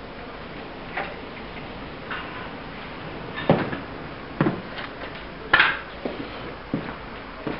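A handful of separate sharp knocks and metallic clinks as tools and parts are handled and set down around a car engine, with steps on a concrete floor; the loudest clink comes just past halfway.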